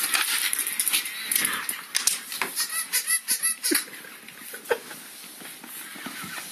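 Scuffling, clicks and scraping as a beagle plays with a battery-powered toy rabbit on a hard tile floor, with a run of quick high chirps about three seconds in.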